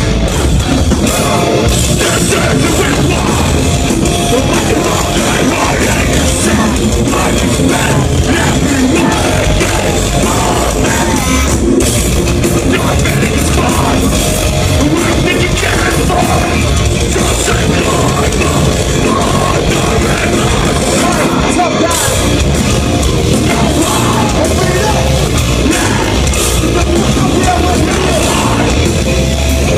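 A live metalcore band playing loud, with singing and yelled vocals over the band, heard from within the crowd.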